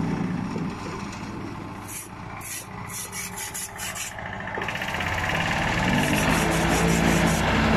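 Small walk-behind double-drum asphalt roller with its engine running steadily. The sound dips a little in the middle, then grows louder in the second half as the roller comes back toward the listener.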